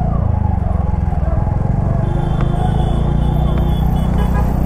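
TVS Ntorq 125 scooter's single-cylinder engine running steadily while riding.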